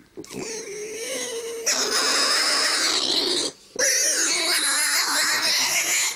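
A piglet squealing in long, shrill, continuous squeals. They are softer at first, get loud from about two seconds in, break off briefly a little past halfway, then carry on loud.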